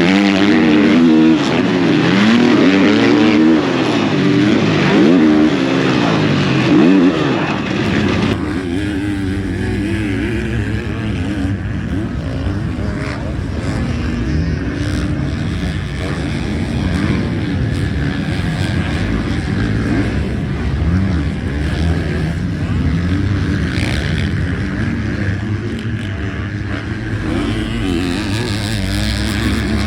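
Motocross bike engine revving hard, its pitch rising and falling over and over as the rider accelerates and shifts. About eight seconds in the sound switches abruptly to a lower, steadier engine note.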